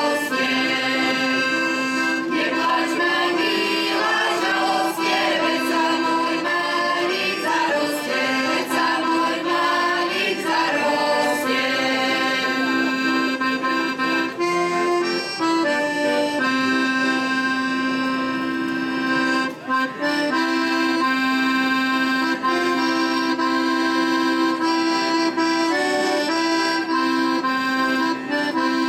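Accordion playing a traditional folk tune, with a group of women's voices singing along through roughly the first twelve seconds; after that the accordion plays on alone.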